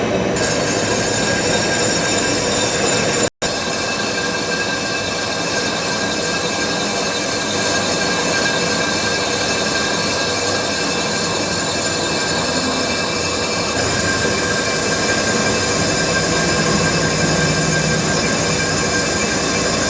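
Lathe cutting into a drum: the tool's steady metallic screech over the running machine, with several high tones held throughout. The sound drops out for an instant about three seconds in.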